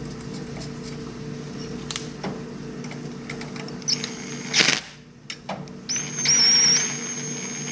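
Cordless DeWalt impact driver spinning a socket to run a locking nut onto a rocker-arm stud: a short high whine about four seconds in, ending with a sharp click, then a longer steady run from about six seconds on. A few light metal clicks from the wrench and parts come before it.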